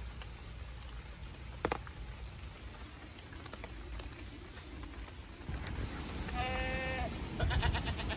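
Steady rain falling, with scattered drops. Near the end an animal gives a short high call held for about half a second, then a quick stuttering call.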